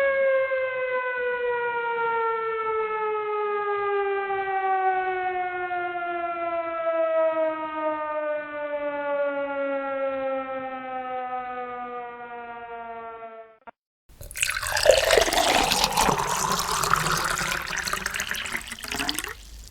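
A siren winding down, one long wail whose pitch falls slowly as it fades out over about thirteen seconds. After a short gap, a loud, noisy rushing sound starts and runs on.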